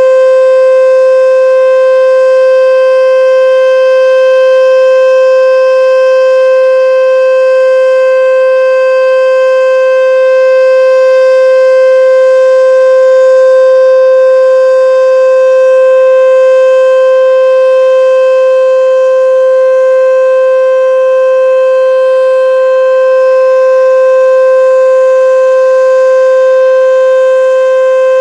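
H.O.R. Super Sirex outdoor warning siren sounding the full alert signal in a test: one loud, held single tone that neither rises nor falls, with only slight slow swells in loudness.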